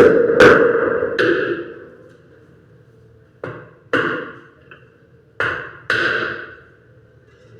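Hammer blows with a ringing decay after each strike: a few blows in the first second and a half, then two pairs of blows, each pair about half a second apart.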